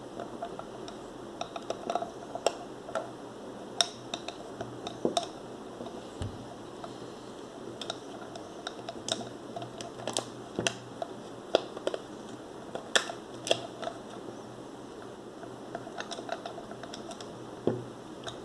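Irregular small clicks, taps and scrapes of 35 mm film, the metal take-up spool and the Zorki 1 rangefinder's body being handled as the film is threaded onto the spool and slid into the camera. A steady low hiss runs underneath.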